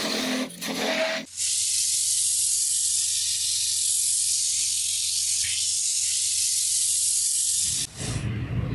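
Sandpaper on a block hissing steadily against a wooden axe handle spinning on a wood lathe, with the lathe motor's low hum beneath. It starts about a second in and cuts off suddenly near the end.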